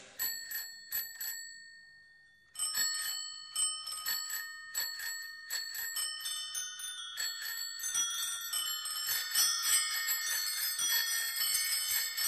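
Background music of bright, bell-like struck notes. A few notes sound, then a short pause about two seconds in, then the notes come back and build into many overlapping chiming layers.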